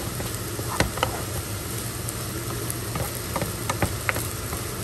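Fried rice sizzling in a hot pan as it is stirred with a spatula, with a few sharp clicks of the spatula striking the pan.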